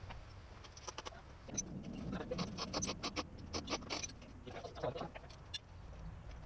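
Irregular run of sharp clicks and knocks as hand tools and metal go-kart parts are handled during disassembly, with faint voices in the background.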